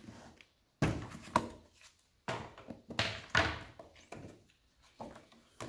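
Plastic handling noises from a LEGO Spike Prime storage tub: the white plastic lid is pried off with a sudden clunk and knock, then set aside with scrapes. This is followed by the rustle and flap of the card label sheets being lifted from the tray, and a sharp click near the end.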